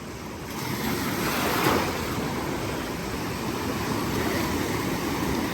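Gulf of Mexico surf breaking and washing up the shallows, a wave swelling loudest about a second and a half in.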